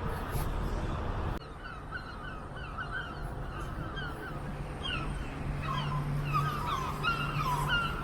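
Gulls calling: a run of short, repeated calls starting about a second and a half in, over low street and traffic noise.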